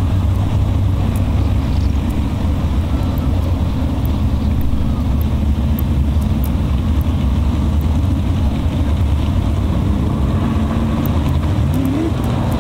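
A field of dirt-track modified race cars' V8 engines running hard around the oval, a loud, steady engine din. Near the end one engine's pitch rises as it accelerates.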